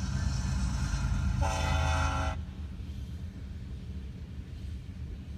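Union Pacific diesel locomotive passing with a steady low rumble, and a short blast of its air horn about a second and a half in, lasting about a second. The rumble drops off just after the horn stops.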